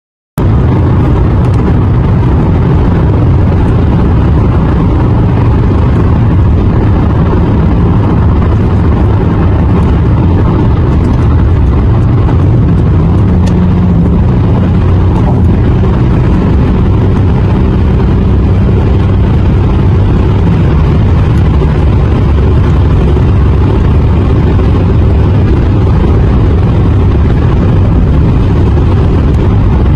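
Steady low rumble of road and engine noise inside a car cruising on a highway, with a faint steady hum for a stretch in the middle. It cuts in after a brief silence right at the start.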